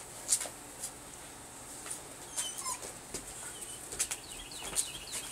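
Faint scattered crunches and scuffs in light snow, with a few faint high chirps a little past the middle.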